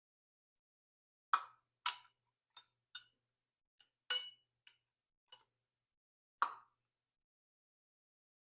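Sharp metal clinks and knocks of tools and parts while a Yale spur-geared chain hoist body is being unbolted: about nine irregular strikes, one of them ringing briefly.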